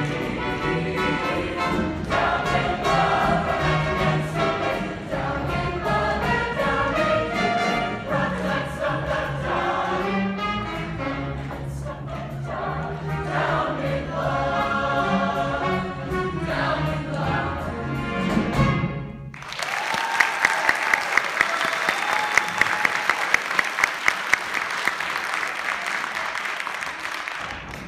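Show choir singing over a band accompaniment, the song cutting off sharply about two-thirds of the way through. Audience applause and cheering follows, with sharp claps standing out.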